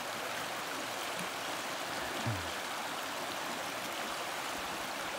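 Shallow rocky creek running fast over stones: a steady rush of water.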